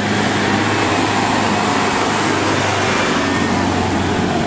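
Armoured Land Rover Defender police jeep driving close past on a dirt track, its engine running steadily under the noise of its tyres on the dirt.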